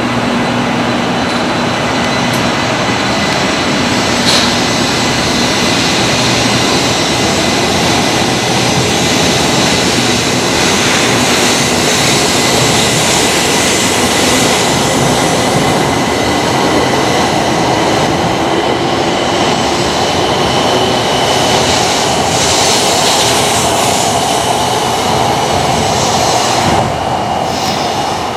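JR West 700 Series Rail Star Shinkansen pulling out of the station and accelerating past at close range. Its running noise is loud and steady, with a whine that rises slowly in pitch as it gathers speed. The level drops shortly before the end as the train draws away.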